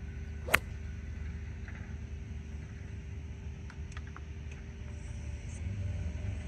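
A golf iron striking the ball from the rough: one sharp click about half a second in, over a steady low rumble.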